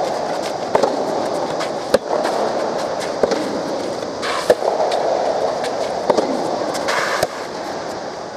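Soft tennis rally: sharp racket strikes on the soft rubber ball about every 1.2 seconds over a steady crowd hubbub. The strikes stop a little after seven seconds in and the hubbub eases.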